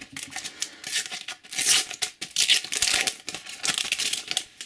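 Shiny Panini sticker packet being torn open by hand, crinkling and ripping in a couple of loud bursts around the middle.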